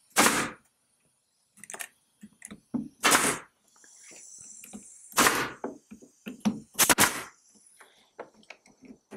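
A Husky pneumatic nailer firing about four or five sharp shots a second or two apart, with smaller clicks between them. It is driving fasteners through a plastic shim wedge into the wood framing of a window opening.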